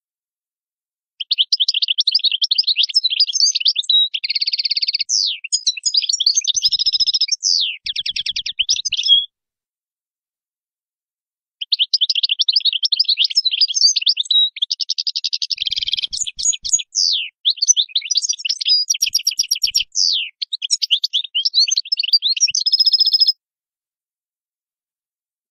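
European goldfinch singing: two long phrases of fast twittering trills, buzzy notes and quick pitch sweeps. The first stops about nine seconds in, and the second starts a couple of seconds later and ends shortly before the close.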